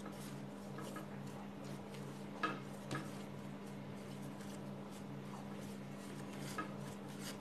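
Hands shaping a ball of soft yeast dough on a glass cutting board: a few light knocks and taps against the glass, the two clearest about two and a half and three seconds in, over a faint steady hum.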